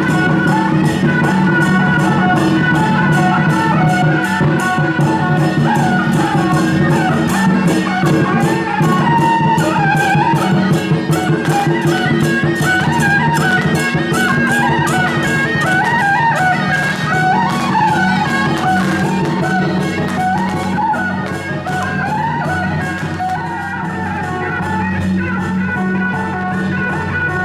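Loud traditional processional music: a reedy wind melody wavers over a steady low drone and a fast, even percussion beat.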